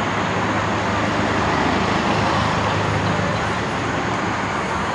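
Steady rushing noise that swells slightly about two seconds in.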